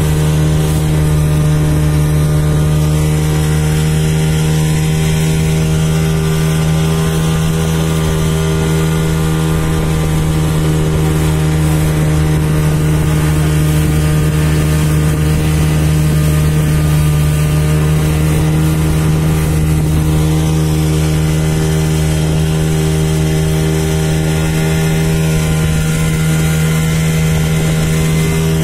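Speedboat engine running steadily under way, one constant drone that holds the same pitch and level throughout.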